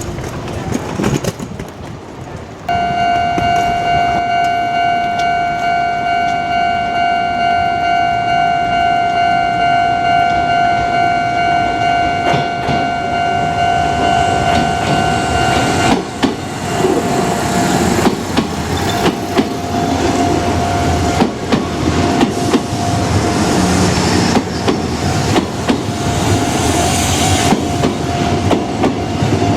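Level-crossing warning bell starts suddenly about three seconds in and rings steadily. From about halfway a train passes over the crossing, its wheels clattering on the rails, while the bell keeps ringing underneath.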